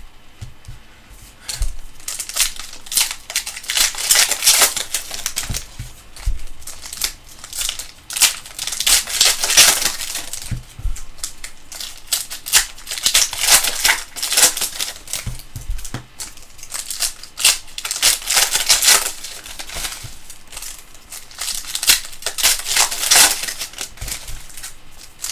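Plastic trading-card pack wrappers being torn open and crinkled, in repeated irregular bursts of rustling.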